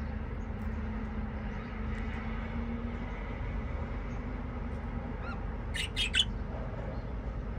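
Budgerigar giving a quick run of three sharp, high chirps about six seconds in, preceded by a fainter short call, over a steady low background hum.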